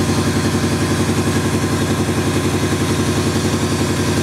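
Subaru Legacy rally car's flat-four boxer engine idling, with a steady, even pulse.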